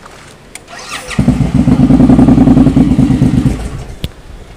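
Benelli 600i inline-four engine turning over on the starter with a short rising whine, catching and running loudly for about two seconds, then dying away.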